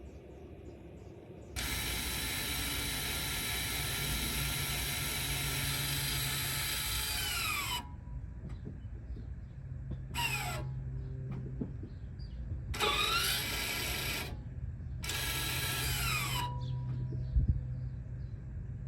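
Rear electronic parking brake caliper motors of a 2020 Toyota Camry whirring as the system is taken out of service mode: one run of about six seconds that winds down in pitch as it stops, then three shorter whirs, each rising in pitch as it starts and falling as it stops. A short thump comes near the end.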